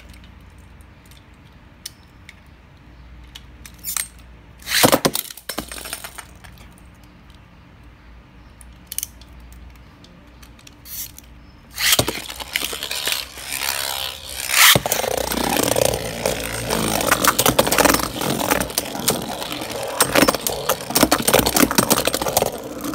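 Two Beyblade spinning tops, Brave Valkyrie and Mirage Fafnir, battling in a plastic Beyblade stadium. The first part holds only a few clicks and knocks. About halfway through, the tops are launched into the bowl and whir, rattle and scrape around it, striking each other with a sharp hit a few seconds later.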